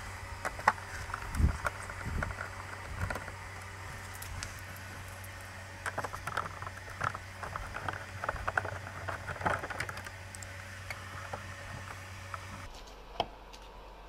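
Irregular small clicks and knocks of plastic fairing parts and fasteners being handled as the side fairing panel of a Yamaha Tracer 700 motorcycle is unclipped and taken off. A steady low hum underneath stops shortly before the end.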